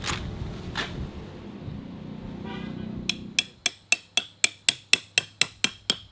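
Hammer driving a metal tent stake into the ground: quick, even blows about four a second, each with a bright metallic ring, starting about three seconds in. Before that, wind rumbles on the microphone.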